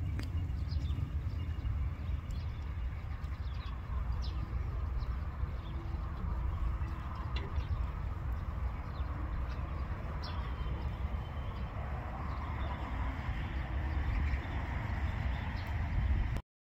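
A steady low rumble with scattered short magpie calls over it. The sound cuts off suddenly near the end.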